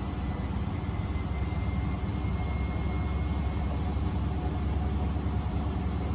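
Miele W Classic washing machine running: a steady low rumble from the turning drum, with a faint motor whine that creeps slightly upward in pitch.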